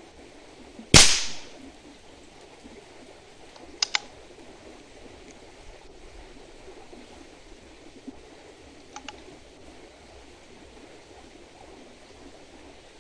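A single shot from a .22 PCP air rifle about a second in: a sharp crack that fades within half a second. Two faint quick double clicks follow, a few seconds apart.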